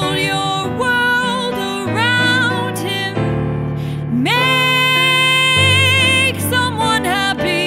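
A woman singing with vibrato over instrumental accompaniment, holding one long note about four seconds in.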